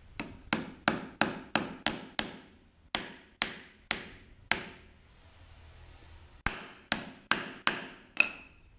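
Claw hammer driving small nails through plastic brackets into a wooden frame rib: about sixteen sharp blows in three runs of roughly three a second, with short pauses between runs. The last blow rings a little.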